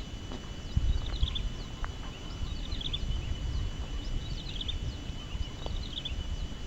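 Wind buffeting the microphone in uneven low rumbles, with a bird repeating a short chirping phrase about once a second and a steady high insect-like whine.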